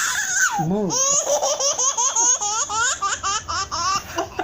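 A baby laughing hard: a fast, high-pitched run of laughs, about five a second, the kind of belly laugh that tips over into coughing.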